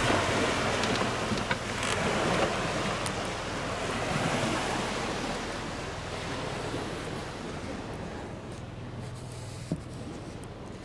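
Wind and small lake waves washing onto a sandy shore: a steady rushing noise that grows fainter in the second half. A single short knock sounds near the end.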